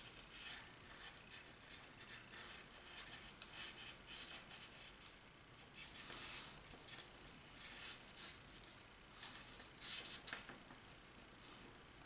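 Faint rubbing and swishing of nylon paracord drawn through fingers as a snake knot is worked up and snugged tight, with a few louder swishes near the end.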